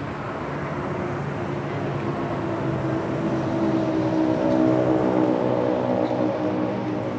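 Street traffic: a motor vehicle's engine running close by, growing louder to a peak about two-thirds of the way through and then easing off.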